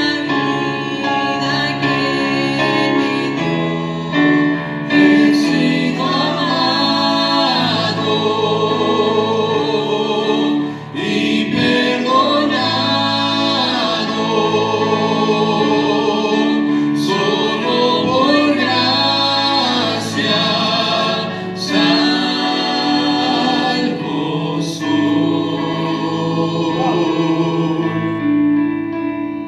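A man and a woman singing a gospel hymn together in harmony, with held notes over a steady piano accompaniment.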